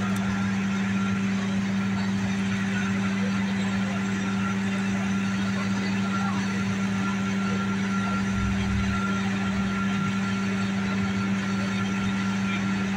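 Fire engine running steadily at the scene, a constant hum that doesn't change in pitch, with a brief low rumble about eight seconds in.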